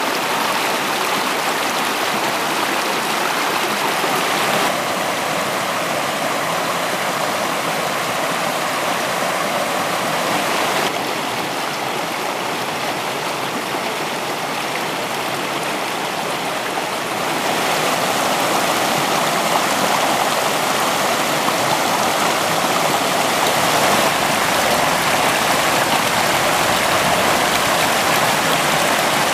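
Shallow woodland brook rushing over rocks and small cascades, a steady rush of running water that gets a little louder in the last third.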